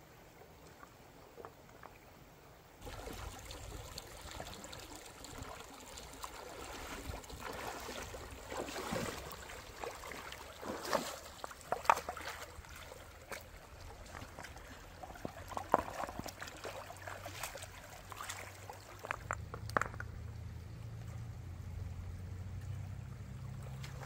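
Water splashing and trickling, starting about three seconds in, with a few sudden sharp sounds through the middle.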